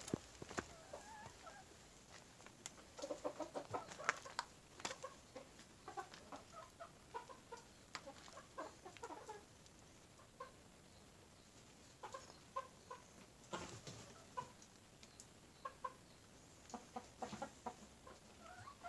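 A flock of domestic chickens clucking softly, with short clucks coming in scattered runs and a few sharp clicks among them.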